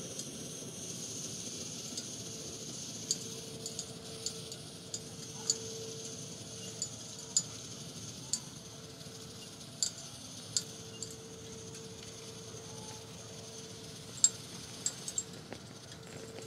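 Steel burner and flame spreader of an MSR WhisperLite stove ticking and pinging as the hot metal cools. The clicks are sharp and irregular, a dozen or so, the loudest near the end, over a faint steady high hiss.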